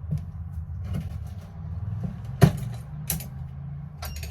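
A few sharp clicks and knocks as a solar power cable is handled and plugged in, the loudest about two and a half seconds in, over a steady low hum.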